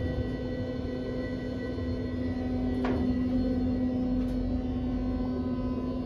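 Dover elevator car running with a steady hum, one low tone carrying over higher ones, with a small click about three seconds in.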